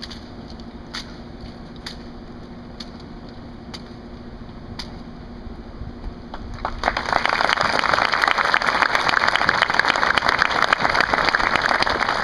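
Sharp rifle-drill clicks and slaps, about one a second, from the platoon's M1 Garand rifles, then from a little past halfway a crowd breaks into loud, sustained applause.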